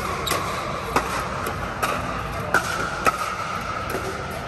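Hollow plastic pickleball popping off hard paddles and the court in a quick net rally: a string of sharp pops, about one every 0.6 to 0.7 seconds, over a steady background hum.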